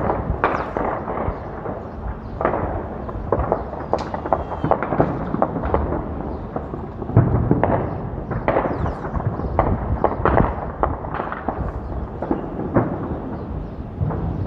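Non-stop gunfire: many irregular shots and bursts overlapping one another, with louder bangs about seven and ten seconds in.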